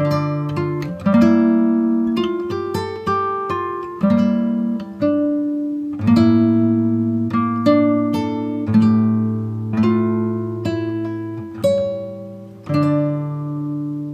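Instrumental background music: plucked-string notes and chords, each struck sharply then ringing out and fading, in a steady unhurried run.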